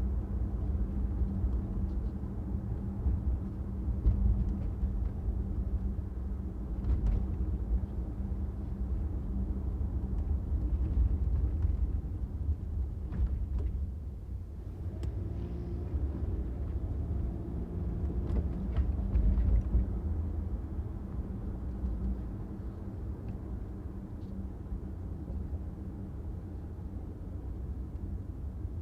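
Car being driven in traffic: a steady low rumble of road and engine noise with a constant hum, a few brief ticks and knocks, and a fainter pitched tone in the middle.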